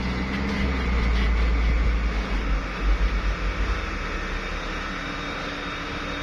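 Motor vehicle engines running: a deep low rumble that fades away about four seconds in, leaving a fainter, steady engine drone.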